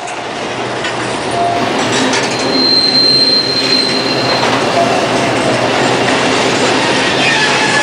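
A train running on rails, fading in and growing louder over the first few seconds, with a high wheel squeal lasting about two seconds near the middle.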